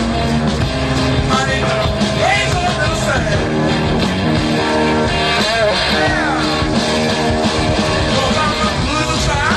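Rock music with a sung vocal, electric guitars and drums over a steady beat.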